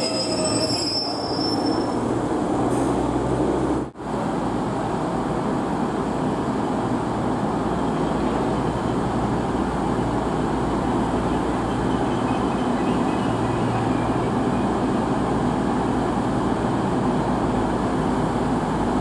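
A Class 142 Pacer diesel railbus at the platform, with a brief high wheel squeal in the first second. After a cut, a Class 222 Meridian diesel multiple unit runs slowly along the platform with a steady diesel rumble.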